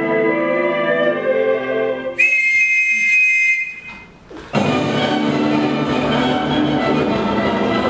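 Stage-show music. Sustained layered chords end about two seconds in, and a single high held note follows for about a second and a half. After a brief dip, dense full-ensemble music comes in loudly about four and a half seconds in.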